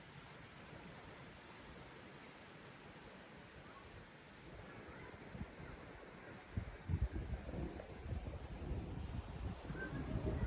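Insects trill steadily in two high, unbroken bands over a faint hiss of outdoor background. About two-thirds of the way in, uneven low thuds and rumbling set in and grow louder.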